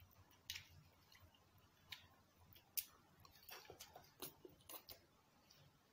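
Faint eating sounds: scattered clicks and scrapes of plastic forks in paper food boxes, with quiet chewing and slurping of spaghetti.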